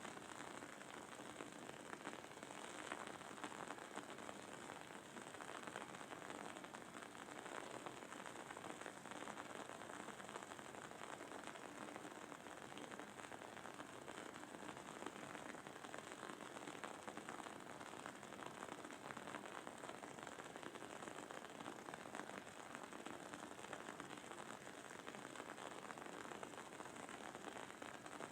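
Wooden candle wick crackling as it burns: a quiet, continuous patter of many tiny pops close together.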